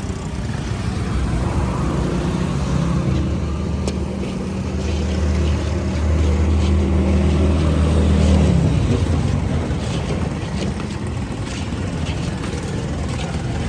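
A motor vehicle's engine running close by with a steady low hum, its pitch dropping away as it passes about eight or nine seconds in. Street noise and a few faint clicks go on after it.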